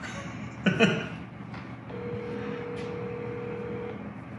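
Telephone ringback tone through a smartphone's speaker: one steady ring lasting about two seconds, starting about two seconds in, while the call waits to be answered. A man laughs briefly just before it, under a second in.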